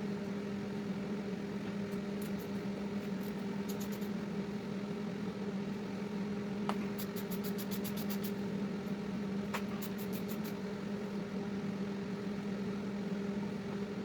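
A steady hum at one constant pitch, with a few scattered light clicks and, about halfway through, a quick run of around a dozen even clicks.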